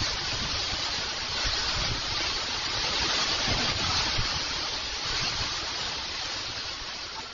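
Storm wind rushing steadily, with irregular low buffeting of the wind on the microphone.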